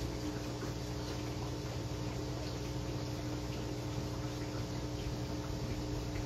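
Steady electrical hum with a few fixed tones over a low even room noise, with a few faint ticks.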